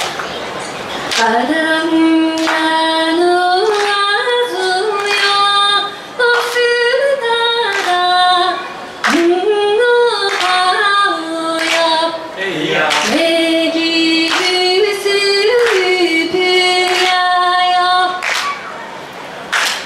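A woman singing an unaccompanied melody, starting about a second in, with hand claps keeping time.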